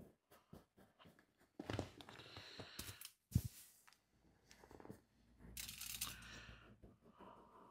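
Fingers rubbing and pressing wax polish into cracked leather on a sofa cushion: quiet, scratchy rubbing in two bursts, with a single dull thump about three seconds in.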